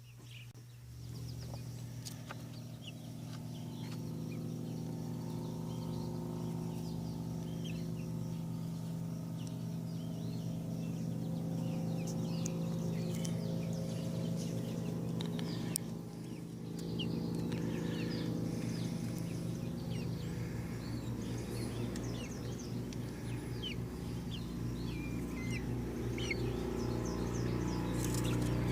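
Young chickens peeping and clucking in short, scattered calls over a steady low motor hum that builds over the first few seconds and dips briefly about halfway through.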